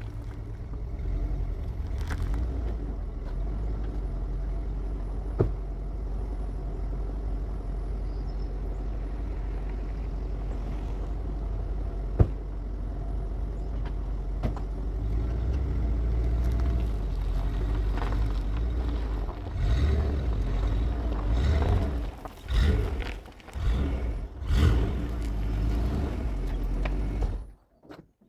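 Pickup truck driving, a steady low engine and road rumble with a few sharp knocks, turning uneven and choppy over the last several seconds before it cuts off suddenly.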